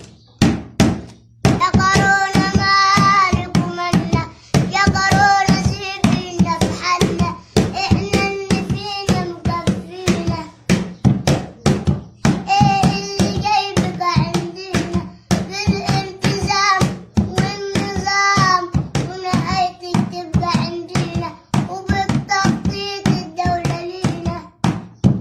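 A young boy singing a Mother's Day song in Arabic, in sung phrases over a quick, steady percussive beat.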